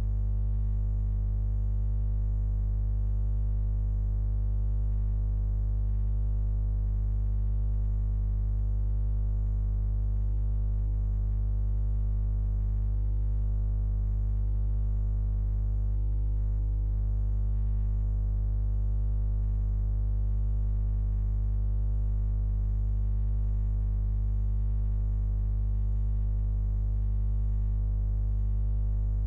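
A steady low drone of many held tones, without rhythm or change.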